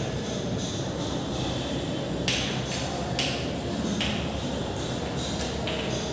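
Chalk scratching on a chalkboard as words are written: a run of short hissy scrapes that start and stop abruptly, the loudest a little over two seconds in, over a steady low rumble.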